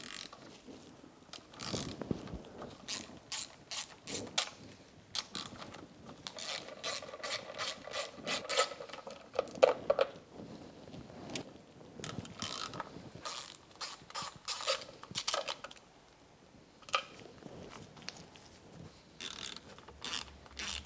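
Hand socket ratchet clicking in quick runs as the spark plug cover bolts are backed out, with short pauses between runs.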